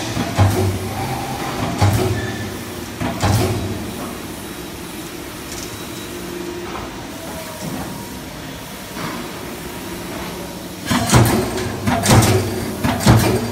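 Hydraulic CNC turret punch press punching sheet metal. Three separate strokes about a second and a half apart come near the start, then a quieter stretch with the machine running, and a quick run of strokes, two or three a second, near the end.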